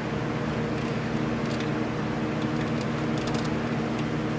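A few faint metallic clicks of a socket wrench being fitted to a bolt in the engine bay, over a steady low hum of several pitches.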